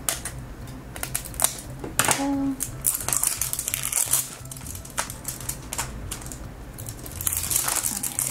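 Thin plastic shrink film on a plastic capsule ball crinkling and crackling as it is torn along its tear strip and peeled off by hand, in irregular clicks and rustles that come thickest in bursts.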